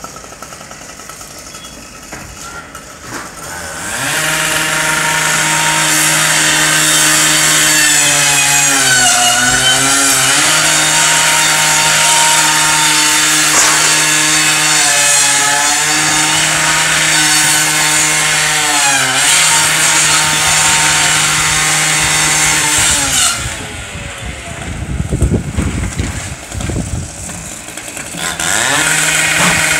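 A firefighter's gas-powered power saw starts about four seconds in and runs at high speed for nearly twenty seconds. Its pitch dips three times as it bogs down cutting, then it stops. After a few low thumps it starts up again near the end.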